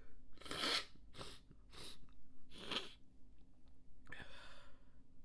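A person's stifled sneezes and breaths: a run of short, breathy bursts through the first three seconds, then a longer breath about four seconds in.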